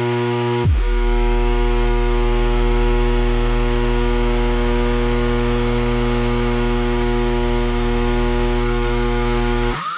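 Laboratory incubator humming: a loud, steady electrical drone of many layered tones over a deep bass. Just under a second in, the low end sweeps down and settles into a heavier drone, and near the end the pitch rises and falls once.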